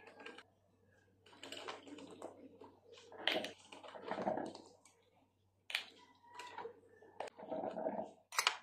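A plastic measuring scoop clicking and tapping against a ceramic mug as sugar and powdered milk are spooned in. The taps are short and irregular, with a few louder knocks and a sharp one near the end.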